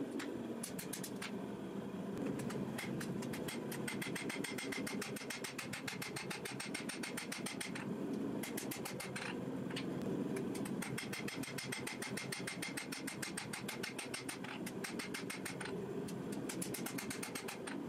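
Hammer striking red-hot steel on an anvil, forging a billet of forge-welded ball bearings out into a knife blade: rapid, regular blows over a steady low roar.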